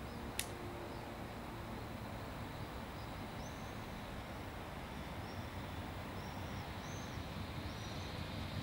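Steady outdoor background noise with a sharp click about half a second in and several short bird chirps through the middle.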